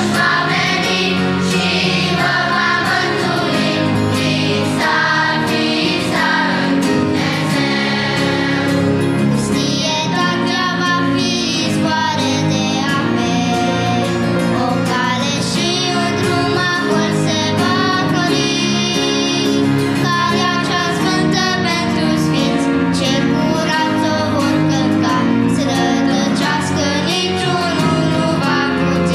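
Children's choir singing a Romanian Christian song, many young voices together over steady instrumental accompaniment.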